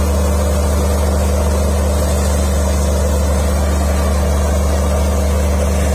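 Tractor-driven Sharif wheat thresher running while it threshes wheat, the tractor engine and the thresher's spinning drum making a steady, unbroken drone.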